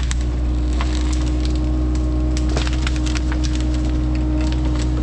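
Excavator engine running steadily while wood cracks and splinters in many sharp snaps, as fallen timber is broken up.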